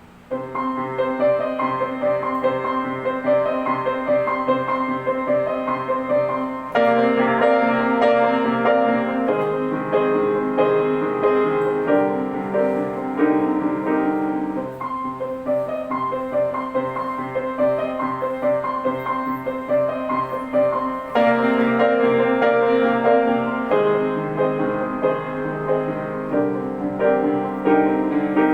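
Kayserburg GH148 grand piano being played in a continuous piece, with louder, fuller passages coming in about 7 seconds and again about 21 seconds in.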